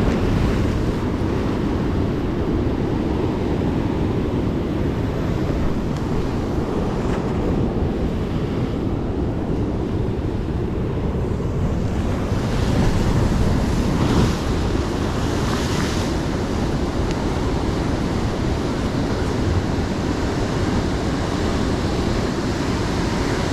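Heavy surf breaking and washing over rocks, with wind buffeting the microphone. The wash swells louder for a couple of seconds about halfway through.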